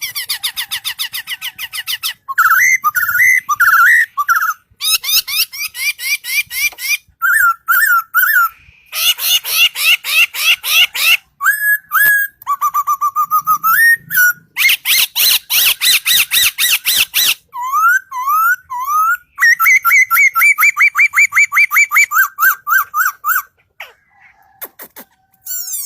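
A bird singing a long, varied song: fast trains of sharp repeated notes alternate with whistled phrases that slide up and down, with a few short pauses between bursts.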